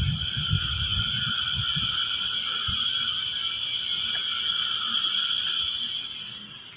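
A steady, high-pitched buzzing hiss in several pitches, fading somewhat near the end.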